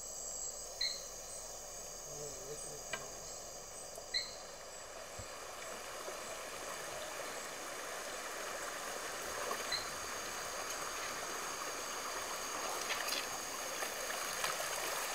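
Tropical forest insects trilling steadily in several high-pitched tones, over a haze of running river water that grows a little louder toward the end. Two short chirps stand out, about one second and four seconds in.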